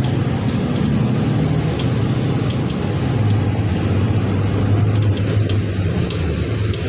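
Inside a moving city bus: the engine and drivetrain give a steady low hum over road noise, with short clicks and rattles from the cabin scattered throughout.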